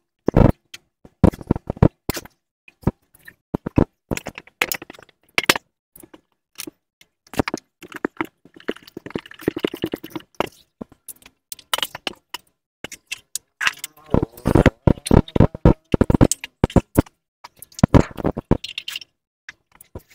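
Clear plastic sheeting crinkling and crackling as it is handled and wrapped around a pit bike's seat, in irregular crackles and rustles with short pauses between them.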